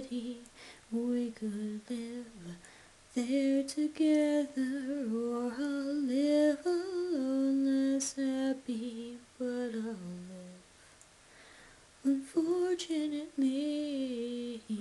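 A singer humming a wordless melody in slow, held phrases, breaking off twice for a pause.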